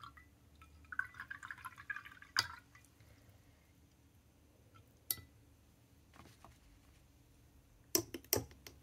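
A pen rinsed and tapped in a glass jar of water: a light jingle of glass and water about a second in, single sharp clinks after that, and a quick run of clinks near the end.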